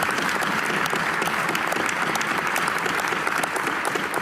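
Members of Parliament applauding: many hands clapping steadily.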